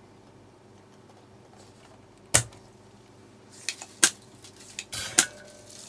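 Sharp clicks and light clatter of soldering tools being handled and set down on a workbench, one click about two and a half seconds in the loudest, a few more and a short rustle near the end, over a faint steady hum.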